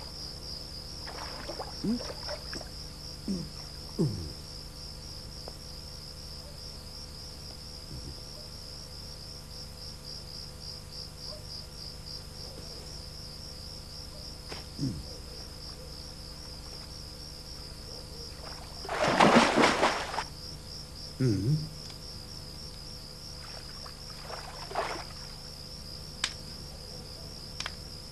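Crickets chirring in a steady, pulsing trill. A few short low falling sounds and ticks come through it, and a brief loud rush of noise about two-thirds of the way through.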